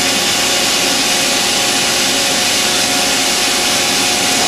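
1991 Makino A-55 horizontal machining center running with its spindle turning at a slow 500 RPM: a steady machine hiss and hum with a faint held tone.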